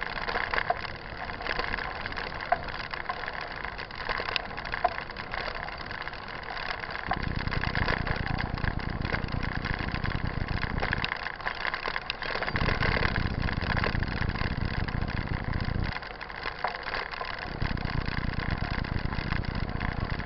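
Mountain bike rolling over a rough dirt trail: steady crackling and rattling from the tyres and bike on the ground. Heavy wind rumble on the microphone comes and goes in long stretches, starting about a third of the way in.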